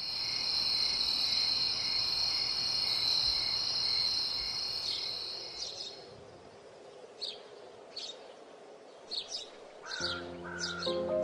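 Outdoor nature ambience: a steady high-pitched buzz for the first six seconds or so, then scattered short bird chirps. Soft music with piano comes back in near the end.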